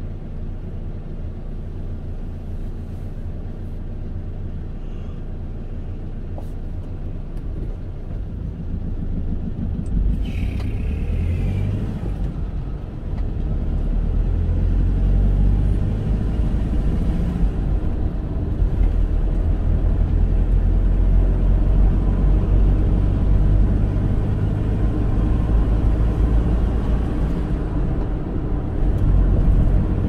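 Car cabin road noise: a steady low engine and tyre rumble, quiet at first while the car waits, then growing louder from about a third of the way in as the car pulls away and gathers speed.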